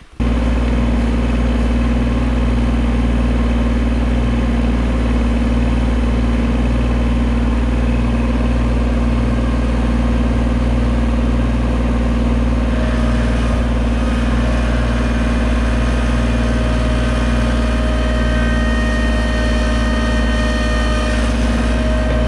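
Diesel engines of a Bobcat loader and a Kubota mini excavator running steadily, heard from on the Bobcat itself. Higher whining tones join about halfway through.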